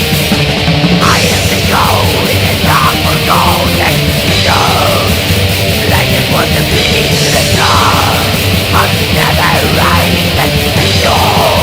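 Heavy metal music with dense distorted instruments and harsh screamed vocals.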